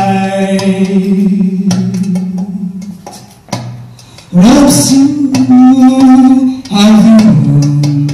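A woman singing into a handheld microphone: a long held note that fades out about three seconds in, a short pause, then a new loud phrase from just past four seconds, moving between a few held pitches.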